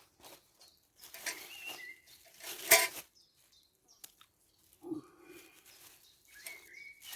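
Rummaging through a kit bag: intermittent rustling of fabric and gear, with a single sharp clack a little under three seconds in.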